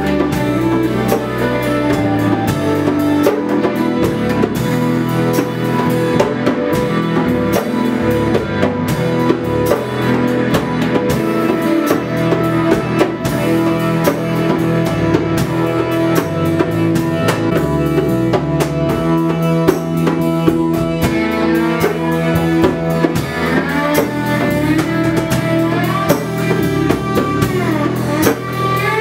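Band music with a drum kit playing a steady beat under bass and other pitched instruments. Gliding notes come in near the end.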